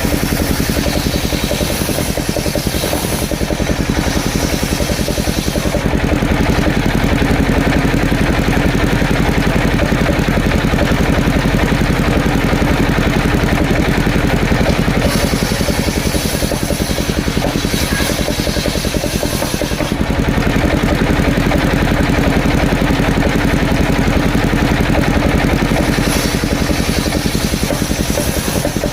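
Engine running steadily with a fast, even firing beat, and a hiss on top that fades and returns every several seconds.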